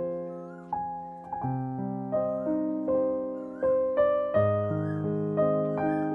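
Background piano music: a melody of struck notes that ring and fade over lower held notes.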